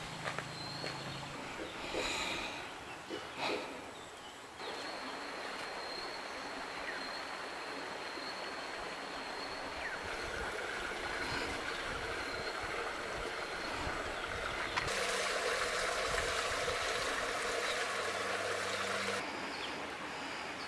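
Hot spring water rushing and gurgling in a rock-lined spring pool: a steady watery rush that grows louder for a few seconds near the end.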